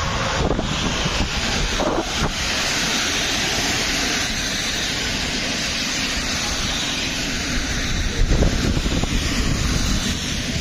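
Passenger train of Intercity coaches passing at speed on an electrified line, a steady rush of wheels on rail that eases near the end as the last coach goes by. Wind buffets the microphone.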